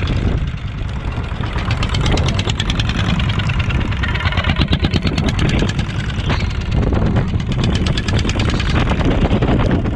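A small fishing boat's inboard engine running steadily with a fast firing beat, over a steady wash of wind and heavy rain.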